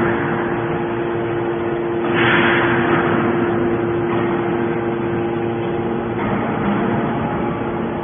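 Hydraulic metal scrap baler running: a steady hum from its hydraulic power unit, with a burst of hissing about two seconds in that fades over about a second.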